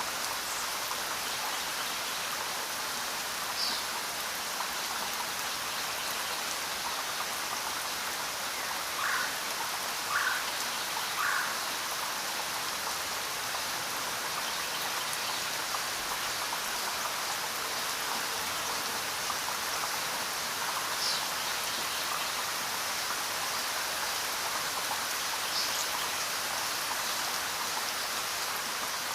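Steady rainfall, an even hiss of falling drops. About a third of the way in come three short calls about a second apart, and a few faint high chirps sound now and then.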